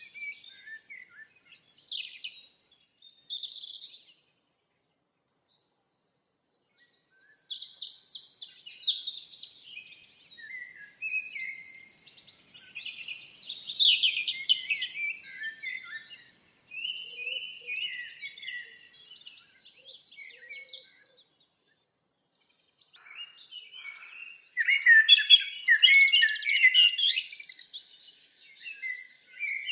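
Birdsong ambience: songbirds chirping and trilling in varied phrases, with two brief lulls and the busiest, loudest calling near the end.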